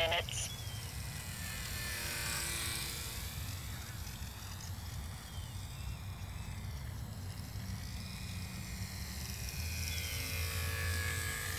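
A small RC model airplane's motor and propeller whining as the plane flies low passes, the pitch rising and falling as it goes by, louder twice: about two seconds in and near the end. A steady low rumble lies under it.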